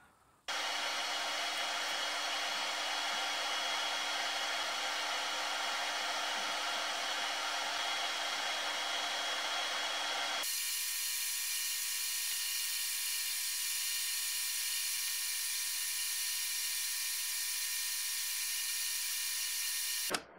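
Steady motor whir and hiss, like a power tool or fan running, with no pauses or changes in speed. About ten seconds in it switches abruptly to a thinner, higher-pitched hiss.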